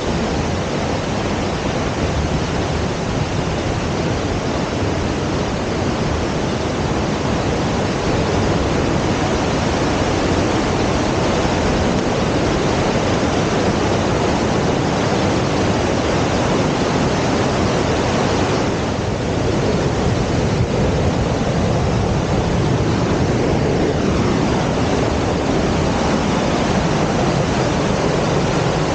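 Loud, steady rushing of fast-flowing water.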